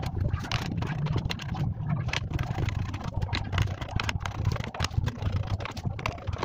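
Irregular small clicks, knocks and scrapes of hand tools and parts being handled as a karaoke speaker's circuit board is opened up, over a steady low hum.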